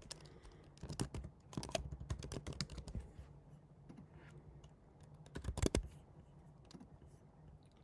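Computer keyboard typing: a run of keystrokes over the first few seconds, then a short, louder flurry of keys a little past the middle.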